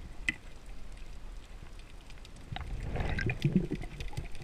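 Underwater sound through an action camera's housing: a low, muffled wash of water with scattered sharp clicks. A louder swell of water sound comes about three seconds in.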